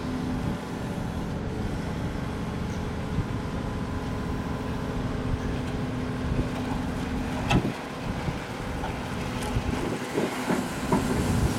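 Volvo EC380E L tracked excavator's diesel engine and hydraulics running steadily with a held hum as the bucket swings. A sharp clank comes a little past halfway, and a few more knocks near the end.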